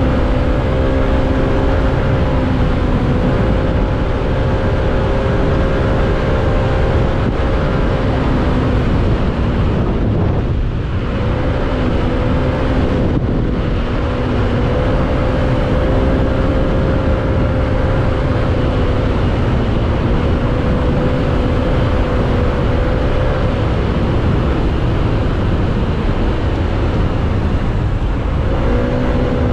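A motorcycle ridden at highway speed, about 90–100 km/h. A steady engine hum sits under heavy wind rush on the microphone. The engine note drops out briefly now and then, most clearly about a third of the way through.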